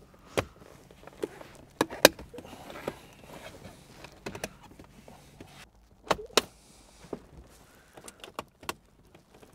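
Plastic trim clips clicking and snapping as the BMW Z4 E89's gear-shift boot surround is pried up out of the centre console with a plastic trim tool. The clicks are sharp and separate, the loudest about two seconds in and a close pair about six seconds in.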